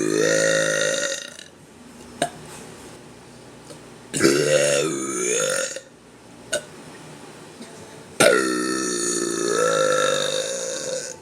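A woman burping: three long, drawn-out burps, the last lasting nearly three seconds, with a couple of short clicks in the pauses between them.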